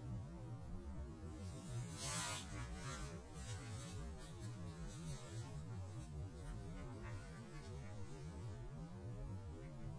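Slowed-down outdoor background noise: a low, wavering rumble, with a brief hiss about two seconds in.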